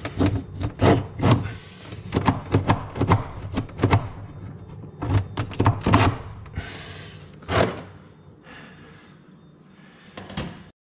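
Metal clicks and knocks of a rusty, stuck freezer drawer slide rail being pried and worked loose with a long screwdriver: rapid irregular knocks for the first six seconds, then sparser ones.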